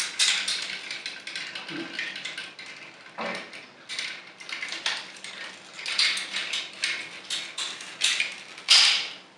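Hard plastic parts of a small knockoff transforming toy robot clicking, scraping and creaking as a tight-fitting cement-mixer barrel piece is worked loose by hand, with one louder clatter near the end.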